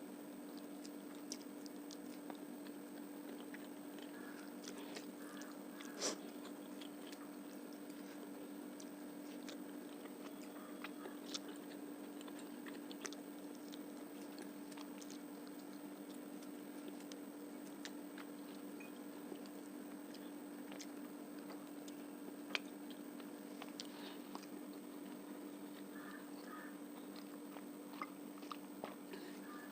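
Close-miked mouth sounds of someone eating fish curry with rice and onion: chewing and biting with scattered small wet clicks and crunches, the sharpest about six seconds in and again about two-thirds through. A steady low hum runs underneath.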